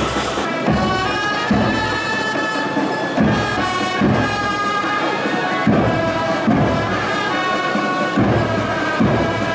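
Marching brass band with trumpets playing a slow melody over a bass drum struck a little more than once a second.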